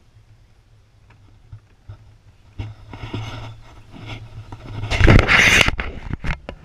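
Muffled knocks and rubbing from a camera being handled inside a waterproof housing, with a louder scraping rush about five seconds in.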